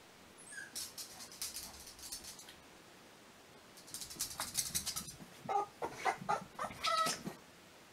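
A Boston terrier whining in short, high-pitched squeaks, with breathy noises in between. The squeaks come in a cluster in the second half, after a first run of breathy noises only.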